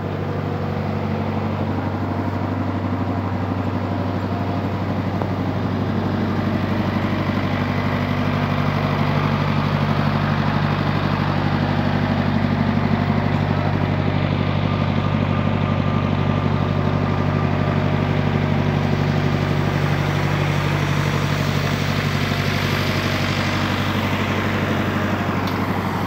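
An engine running steadily at constant speed: a continuous low drone that swells slightly in the middle and then eases back.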